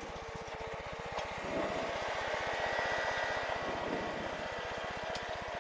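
Light aircraft's piston engine running steadily, a rapid even firing pulse, while the plane waits before takeoff.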